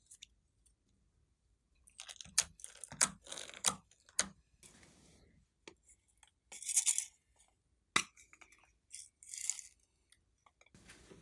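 Small plastic slime and clay containers being handled over a glass dish. A quick run of clicks and crackles comes about two seconds in, then short rustling bursts, a single sharp click around eight seconds and one more rustle.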